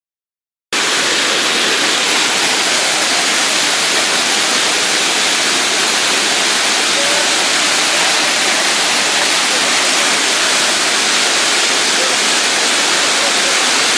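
Steady, loud rush of a swollen river in spate, water pouring and churning, starting about a second in.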